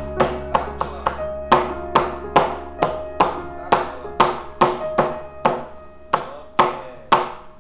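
Background music of plucked notes in a steady rhythm, about two notes a second, growing fainter toward the end.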